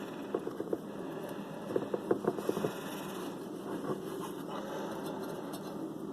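Hands handling a loudspeaker's new foam surround and cone, giving a run of small scratchy clicks and scrapes in the first few seconds, then only a faint steady hiss.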